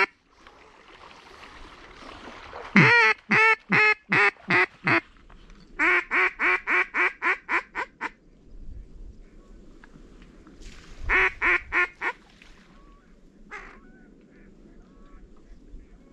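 Mallard-hen quacks blown on a duck call in three quick runs: about seven loud quacks, then a longer even run of about ten, then five more, with one short note after. Calling like this is used to draw circling ducks to the decoys.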